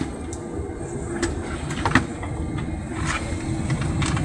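Boeing 747-400 airliner cabin noise: a steady low rumble and hum, with a few sharp clicks and knocks as overhead bins are opened and bags are pulled out.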